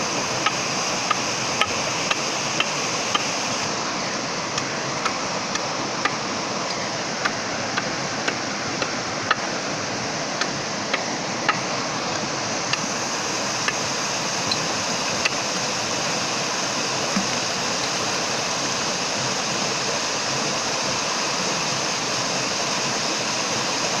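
Shallow stream water running steadily over rocks, with irregular sharp ticks, roughly two a second, that die away about two-thirds of the way through.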